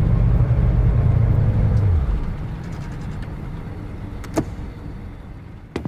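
Car engine rumble from a soundtrack, loud for about two seconds and then slowly fading. Two sharp clicks come through, one about four seconds in and one just before the end.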